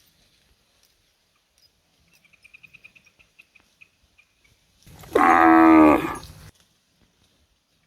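A cow mooing once, a loud call of about a second and a half that begins about five seconds in.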